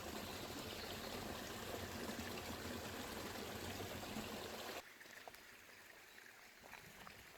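A stream running steadily, cutting off suddenly about five seconds in to quieter outdoor background with a few faint ticks.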